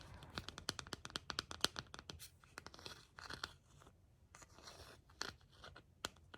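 Rapid crackling and scratching close to the microphone: a dense run of small sharp clicks for about the first three seconds, then a few softer scratchy rustles.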